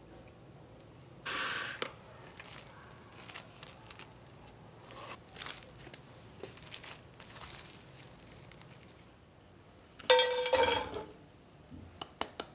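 Plastic cling wrap pulled off and crinkled as it is stretched over a square box of tiramisu cream. About ten seconds in, a loud metallic clatter with a brief ring from a frying pan of sugar on a gas burner, then a few sharp clicks.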